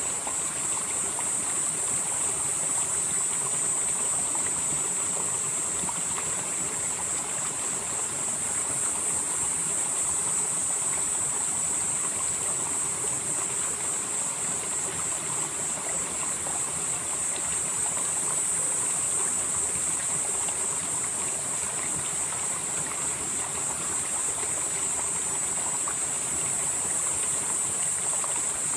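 Valley stream flowing steadily over rocks. A high-pitched hiss above the water swells and eases every several seconds.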